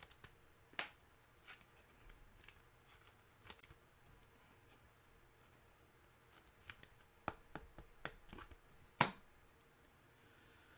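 Trading cards being handled and slid against one another: scattered light clicks and rustles, with one sharper snap about nine seconds in.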